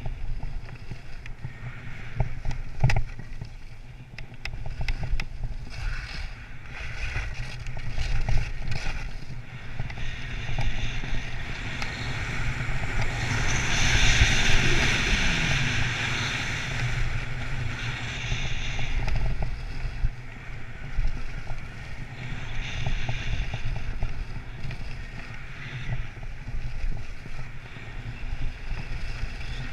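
Skis hissing and scraping over groomed snow during a downhill run, with wind rushing over the microphone and a few scattered knocks. The hiss swells louder for several seconds around the middle.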